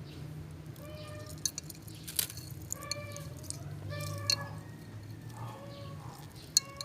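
About four short, pitched animal calls, each about half a second long, over a steady low hum. A few sharp clicks come in between, and the loudest of them falls near the end.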